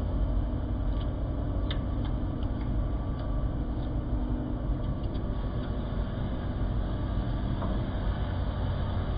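Rotating-bowl stand mixer running steadily, its roller and scraper kneading bread dough in a stainless bowl, with a few light ticks over the motor hum.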